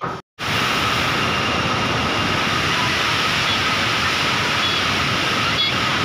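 Kynrem Falls, a tall three-tiered waterfall, pouring close by: a loud, steady rush of falling water and spray. It starts after a brief cut-out about half a second in.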